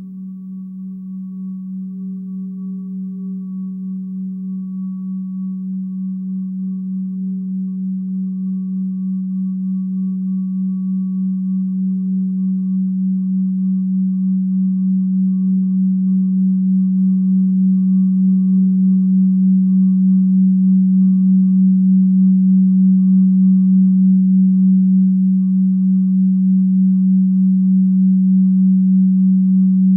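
Experimental drone music: a single low sustained tone with faint higher overtones, slowly swelling louder, with a slight even waver in its level.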